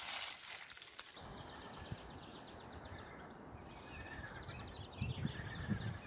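Rustling in dry leaf litter for about the first second, then, after a cut, faint outdoor ambience with songbirds: rapid repeated trills and a brief high whistle. A few low bumps come near the end.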